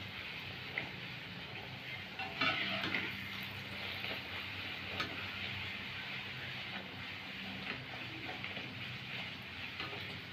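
Luchi deep-frying in hot oil in a karahi: a steady sizzle that swells for a moment about two and a half seconds in as the bread is pressed and puffs, with a few light clicks of the slotted skimmer against the pan.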